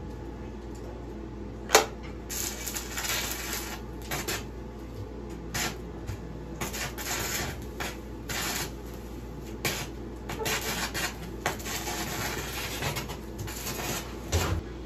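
Stick arc welder crackling in many short stop-start runs, each a second or less with gaps between, after a sharp snap about two seconds in.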